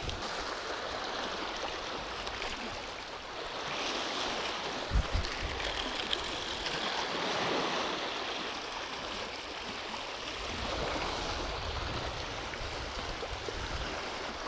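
River water washing along the bank, a steady rushing that swells and eases every few seconds, with two or three brief low thumps about five seconds in.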